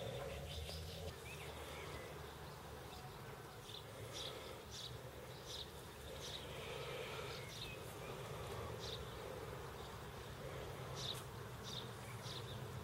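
Insects chirping outdoors: short high-pitched chirps repeating at irregular intervals over a low steady rumble.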